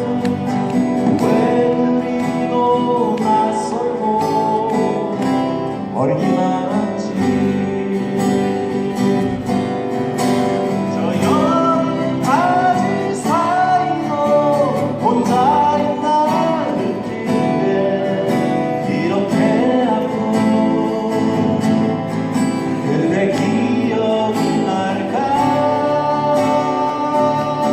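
Folk song played live on acoustic guitar, strummed, with a melody line that glides over it in the middle of the stretch.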